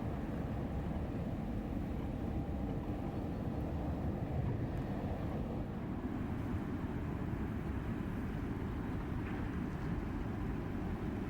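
Passing inland river vessel's engine running: a steady low rumble that does not change much.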